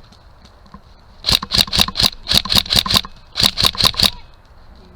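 Airsoft gun firing two quick strings of sharp shots, about five a second, with a short pause just after three seconds in.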